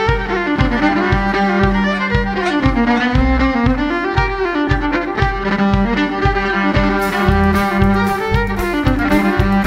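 Live band playing an instrumental passage: a fiddle carries a gliding, sustained melody over a steady low beat of about three pulses a second.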